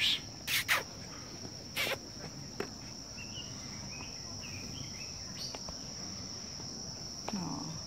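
Steady high-pitched insect chorus, like crickets, running without a break, with a few brief rustles in the first three seconds.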